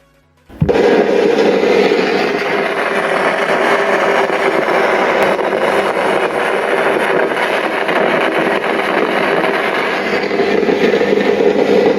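Faulty 4.1 home theater's speakers switched on, giving a loud, steady rushing hiss like an untuned FM radio, which starts suddenly about half a second in. It is the sign of a fault in the amplifier board, typically burst capacitors or open resistors around the amplifier IC.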